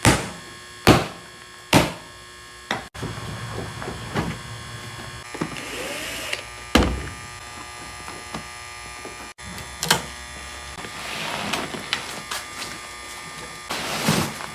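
Sharp knocks and clatter of hand work on a pontoon captain's chair as its armrests are taken off. There are three strikes about a second apart at the start and scattered knocks later, over a steady hum.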